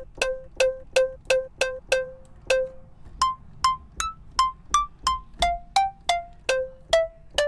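A layered synth pluck in Xfer Serum playing a melody: a sampled pluck gives each note its sharp attack, blended with a short-decay synth pluck made from saw and square oscillators through an envelope-swept filter. About three quick notes a second; it repeats one low note for the first couple of seconds, then moves up to higher notes.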